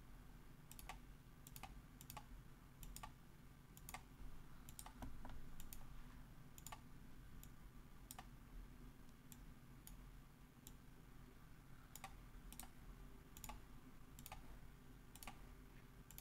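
Faint computer mouse clicks at irregular intervals, roughly one or two a second, over a low steady hum.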